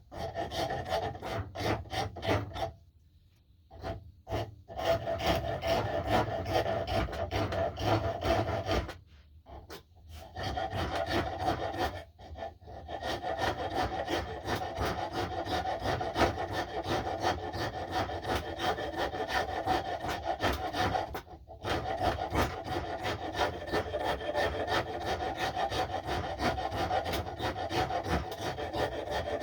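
Wooden axe handle being shaped by hand, a tool rasping the wood in quick back-and-forth strokes, stopping briefly a few times.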